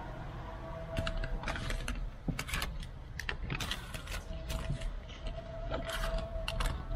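Window tint film being worked onto a car's door glass: a quick, irregular run of short, sharp strokes, about a dozen, starting about a second in.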